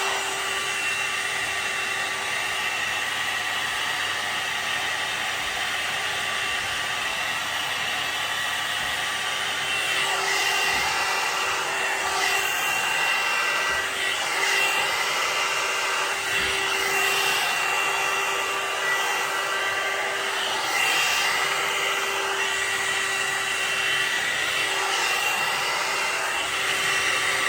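Hot-air brush hair dryer running steadily: a continuous blowing rush with a constant motor whine, a little louder from about ten seconds in.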